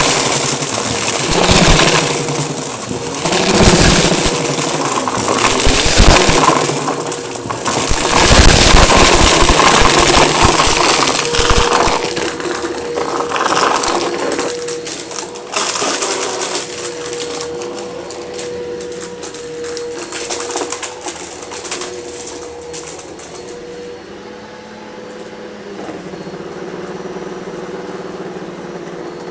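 Eureka vacuum cleaner running with a steady motor whine while sucking up crunchy debris along an edge: dense crackling and rattling of grit through the nozzle, loudest for the first dozen seconds, then fading to mostly the motor running with occasional crunches.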